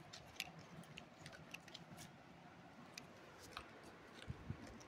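Faint, scattered little clicks and taps of small plastic paint pots and their screw lids being handled and twisted open.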